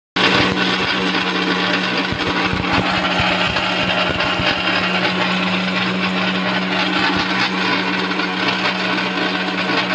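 Floway electric mixer grinder running at full speed, a steady loud whirring hum, as it dry-grinds fennel and coriander seeds to powder with no water added.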